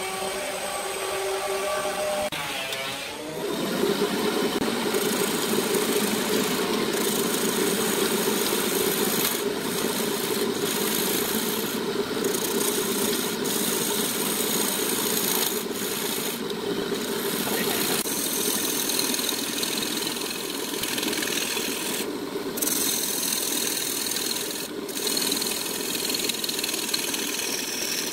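Wood lathe running: its motor hum shifts in pitch about three seconds in. Then a turning tool cuts the spinning wood with a continuous rough scraping, broken by a few brief gaps.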